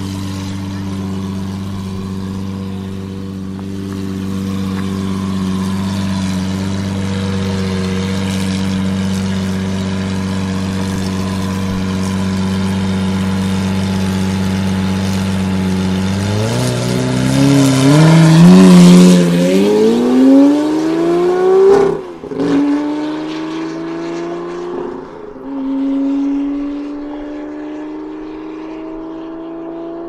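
2009 Lamborghini Murciélago V12 with an upgraded aftermarket exhaust, idling steadily, then revving hard as the car pulls away about halfway through. Its pitch climbs and drops back through gear changes, loudest just after pulling off, then it fades into the distance near the end.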